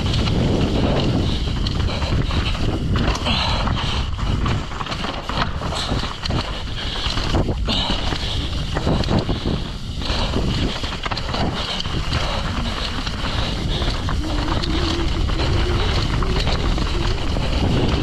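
Mountain bike running fast down a rough dirt trail: wind rushing over the camera microphone, with the tyres and the bike rattling and knocking over bumps.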